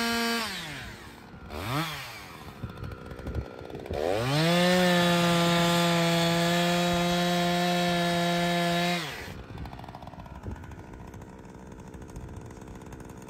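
Gasoline chainsaw engine. It winds down, gives one quick rev about two seconds in, then is held at a steady high speed for about five seconds before dropping off. It is silent for the last few seconds.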